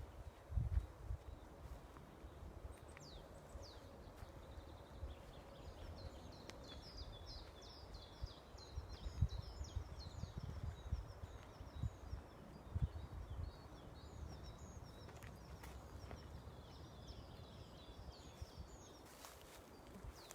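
Songbirds singing in a forest: a run of quick, high chirping notes repeated over and over, with occasional low thumps close by.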